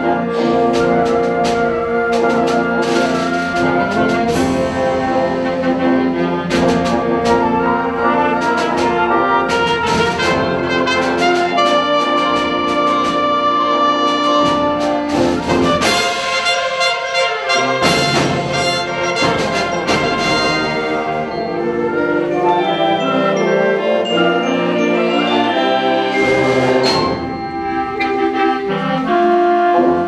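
Concert wind band playing: flutes, clarinets and brass in sustained chords, with sharp percussion strikes through the first half. A big full-band entrance comes a little past halfway, and the music briefly drops in loudness near the end.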